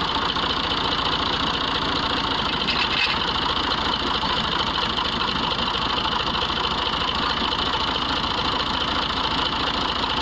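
Massey Ferguson 240 tractor's three-cylinder diesel idling steadily with an even rapid beat.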